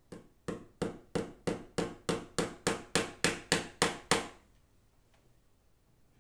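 A small hammer tapping a nail into a wooden window frame: about fourteen even taps, roughly three a second, then it stops.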